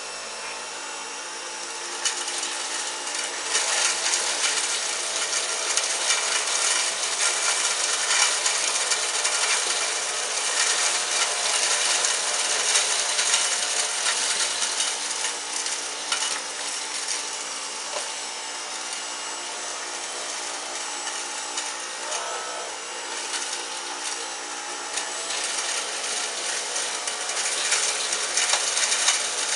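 Dyson V10 Animal cordless vacuum cleaner running on its lowest power setting, a steady motor whine with a dense crackling rattle of cornflakes being sucked up. It gets louder about two seconds in.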